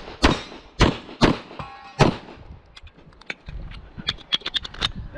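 Four pistol shots from a single-stack semi-automatic pistol, about half a second apart, in the first two seconds. After them comes a run of light, quick metallic clicks as the pistol is handled after the string of fire.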